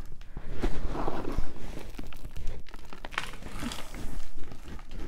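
Hands working potting soil around a plant cutting in a small pot: irregular rustling with small clicks and taps, loudest about a second in.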